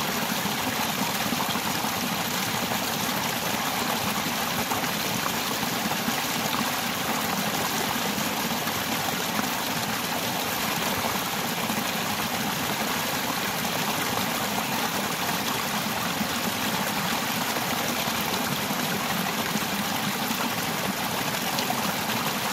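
Small rocky mountain stream splashing and gurgling as it cascades over boulders in a short waterfall, a steady rushing of water.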